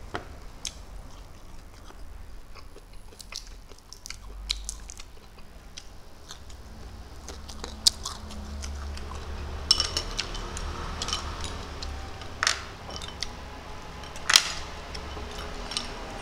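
A person chewing and eating rice and small fried shrimp by hand close to the microphone: soft mouth sounds with scattered short crunches and clicks, a few of them louder and sharper in the second half.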